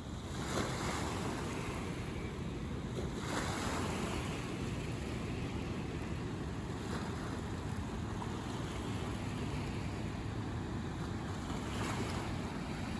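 Floodwater rushing through spillway gates and across a submerged road, a steady rushing of water with a few brief louder surges. Wind buffets the microphone underneath.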